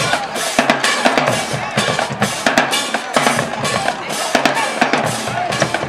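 Marching band drumline playing a fast, steady cadence of sharp drum strikes.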